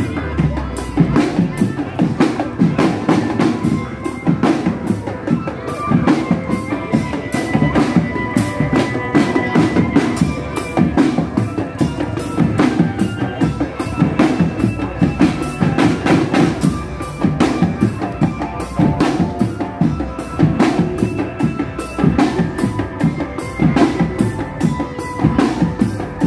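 Marching drum band playing snare and bass drums in a steady, driving beat, with a high melody line carried over the drums.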